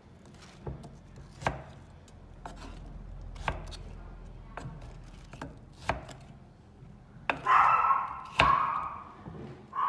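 Kitchen knife cutting peeled kohlrabi on a wooden cutting board: sharp knocks of the blade hitting the board every second or so. A longer, louder stretch of the blade going through a piece comes about seven and a half seconds in.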